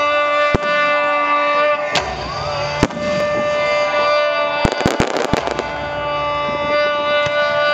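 Fireworks going off: single sharp bangs about half a second in, at two seconds and near three seconds, then a quick cluster of cracks around five seconds in. Loud music with long held notes plays throughout.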